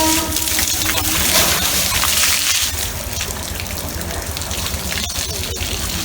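Water splashing and trickling steadily.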